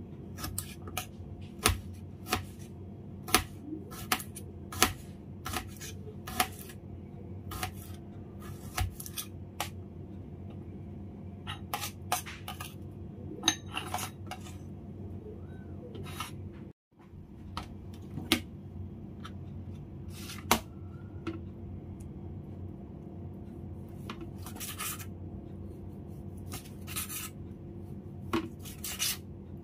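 Kitchen knife slicing garlic cloves and then smoked duck breast on a stainless-steel cutting board: irregular sharp clicks of the blade striking the metal board, roughly one every second, over a steady low hum.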